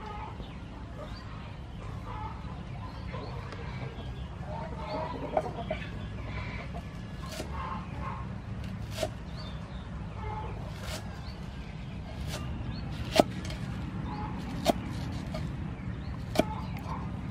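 A cleaver chops garlic chives on a wooden chopping board, giving sharp knocks at irregular intervals a second or two apart, with the loudest ones in the second half. Short calls sound in the background.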